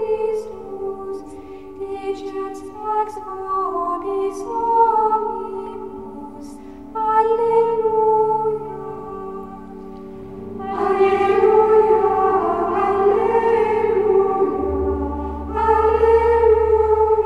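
Slow background music with sung, held notes, swelling louder about eleven seconds in and again near the end.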